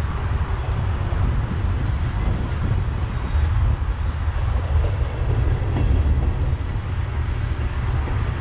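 Freight cars of a passing mixed freight train (tank cars, covered hoppers, boxcars) rolling by: a steady rumble of steel wheels on the rails.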